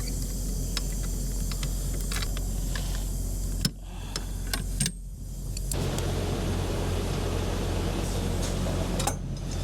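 Semi truck engine idling with a steady low hum, while scattered clicks and knocks come from someone handling things in the cab. Two sharp knocks land about three and a half and five seconds in.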